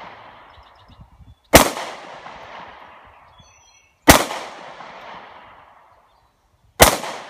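Handgun fired three times, slow and evenly spaced about two and a half seconds apart, each sharp report followed by an echoing tail that dies away over a second or two.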